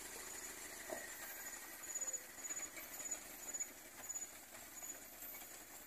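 Faint running of an old cab-over pickup truck's engine as it drives slowly, with a faint high chirp repeating about every half second.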